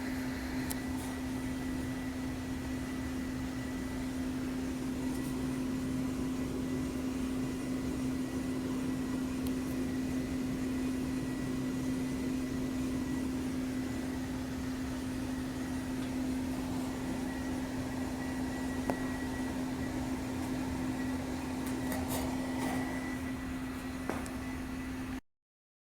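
Trane heat pump outdoor unit running: a steady mechanical hum with a strong even drone and a faint high whine, and a few faint clicks along the way.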